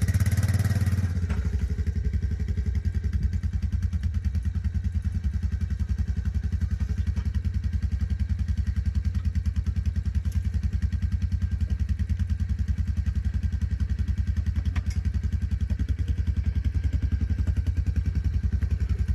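A four-wheeler (ATV) engine idling steadily with an even, fast low pulse, a little louder for about the first second.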